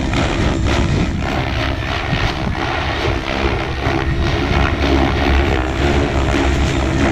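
SAB Goblin Kraken 700 electric RC helicopter flying freestyle aerobatics: a steady whoosh of the spinning rotor blades over the hum of the electric motor, swelling and easing a little as it manoeuvres.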